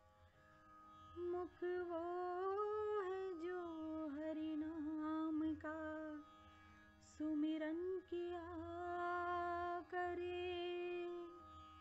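Indian devotional bhajan music: a slow, ornamented solo melody that glides and bends between held notes in short phrases over a steady low drone.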